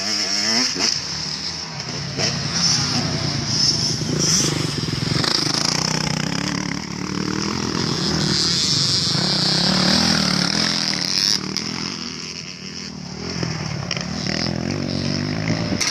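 Motocross dirt bikes running on the track, their engine note rising and falling as the riders open and close the throttle over the jumps.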